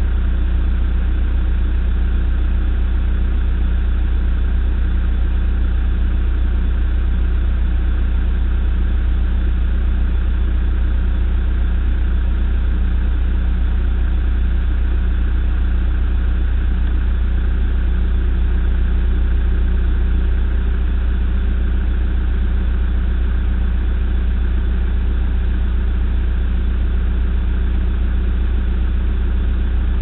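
Case backhoe loader's diesel engine idling steadily, a continuous low hum.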